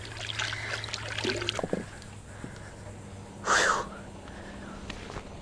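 Creek water splashing and trickling around hands in the current as a small tarpon is let go. The splashing dies down after about a second and a half, and a short breathy puff follows a little past the middle.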